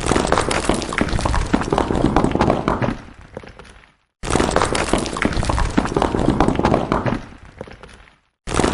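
Stones falling and clattering, a dense rattle of many small knocks that thins out and dies away over about a second. The same clatter starts again abruptly about four seconds in, and once more near the end.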